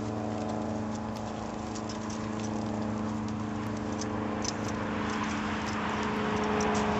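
An engine running steadily with a low hum, getting a little louder and rougher over the last few seconds.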